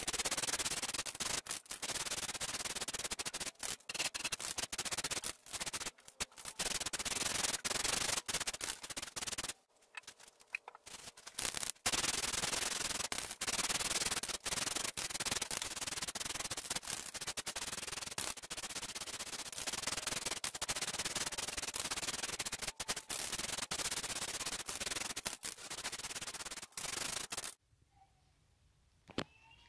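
Aerosol spray can of Rust-Oleum Rust Reformer hissing as it coats a steel transmission cross member. The long sprays are broken by short pauses, with a longer break about ten seconds in, and the spraying stops shortly before the end.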